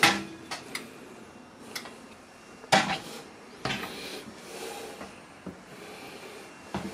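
The glass door of a built-in electric oven being opened and shut: a few light clicks, then a solid clunk a little under three seconds in, and softer knocks after.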